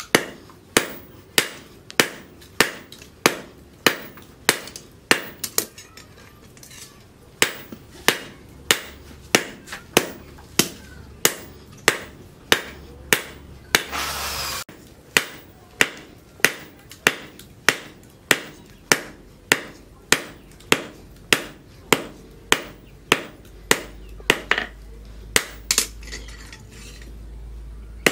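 Hand hammer striking red-hot leaf-spring steel on a steel post anvil, forging a knife blade. Steady blows come about one and a half to two a second, each with a short metallic ring, broken once about halfway by a short rush of noise.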